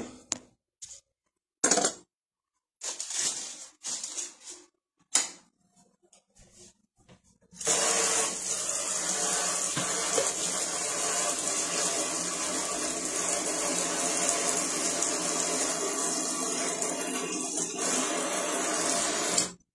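A few scattered knocks and clicks, then about seven seconds in a tap is turned on and water runs steadily into a sink, cutting off sharply near the end.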